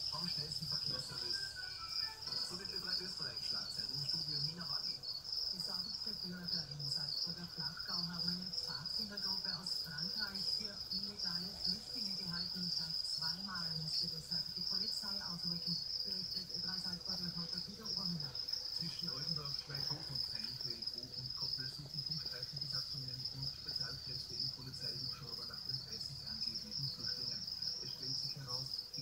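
Crickets chirping steadily in one continuous high-pitched trill, with a faint low wavering sound underneath.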